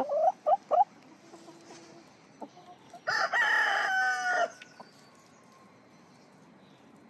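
A few short chicken clucks, then about three seconds in a rooster crows once, a single cock-a-doodle-doo about a second and a half long.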